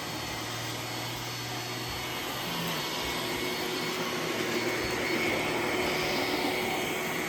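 iRobot Roomba S9 robot vacuum running, a steady whir with a constant hum; it grows a little louder about three seconds in.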